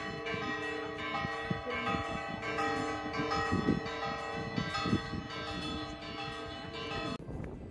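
Church bells pealing, several bells struck again and again with their tones ringing on and overlapping; the ringing cuts off suddenly near the end.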